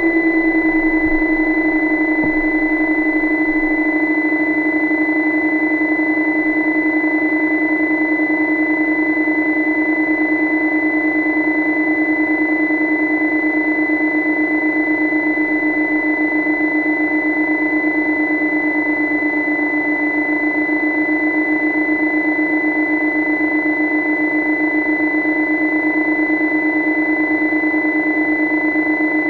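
Steady mechanical hum picked up underwater, with a constant high-pitched whine above it; the hum settles slightly lower in pitch in the first second, then holds.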